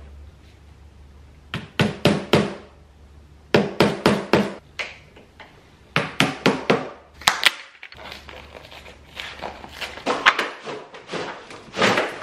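Sharp wooden knocks in quick groups of three or four, repeated every couple of seconds, as white particleboard flat-pack shelf panels are struck to seat their dowels and joints; the knocks come more densely near the end.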